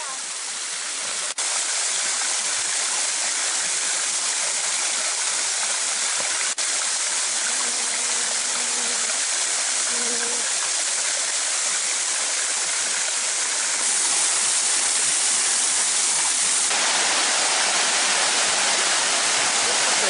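Water of the Beușnița waterfall falling over moss-covered rock into a pool, a steady rushing and splashing that grows a little louder in the second half.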